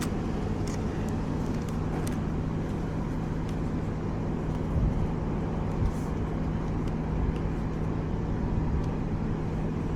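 Steady vehicle rumble with a constant low hum, and a couple of soft knocks about five and six seconds in.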